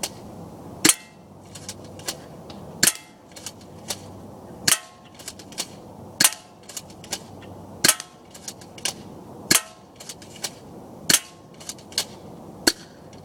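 Crosman Stinger S32P pump-action airsoft shotgun firing repeatedly: eight sharp shots, about one every one and a half to two seconds, with softer clicks between the shots.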